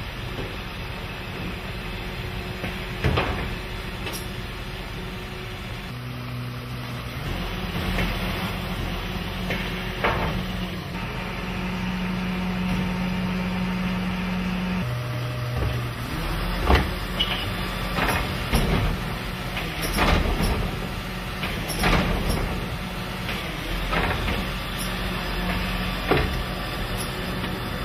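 Garbage truck with a Zoeller Medium XL body, its engine and hydraulics running, the hum stepping up and down in pitch a couple of times. In the second half come a string of sharp metallic bangs and knocks, about one every second or two.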